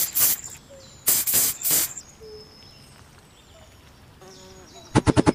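Short hissing spray bursts of liquid sprayed onto a rusty gun's action: one right at the start and two more about a second in. Near the end a loud, rapid rattle of about ten pulses a second begins.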